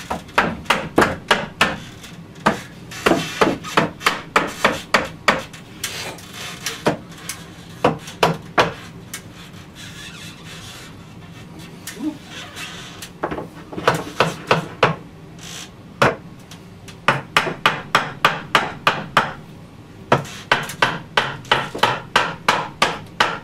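Hammer tapping a wooden window-ledge frame into the drywall returns to seat it flush. The taps are sharp and come in quick runs of about four a second, with short pauses between runs and a longer pause about midway.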